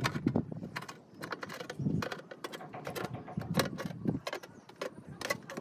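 Aluminium rain gutter and steel gutter hanger clicking and knocking against each other as the gutter is handled into place, with pliers working at the hanger; irregular sharp metallic clicks and a few duller knocks.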